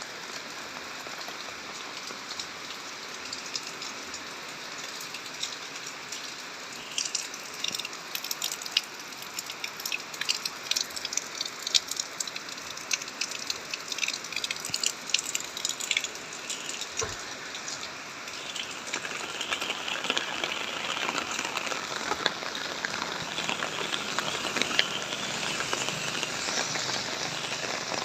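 Rain falling: a steady hiss, with many sharp drops striking a surface through the middle. The hiss grows louder in the last third.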